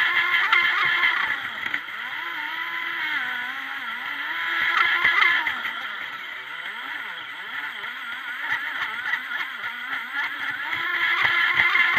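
Pro Boat Formula Fastech RC boat's electric motor and propeller whining, the pitch rising and falling with the throttle, loudest near the start, about five seconds in and near the end. Short slaps of water against the hull come near the end.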